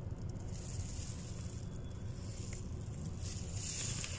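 Street traffic: a steady low rumble of engines, with a hiss that swells twice.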